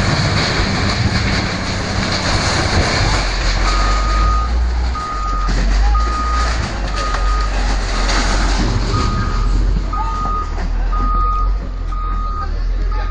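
A heavy vehicle's reversing alarm beeping about once a second, starting a few seconds in, over the low rumble of its engine.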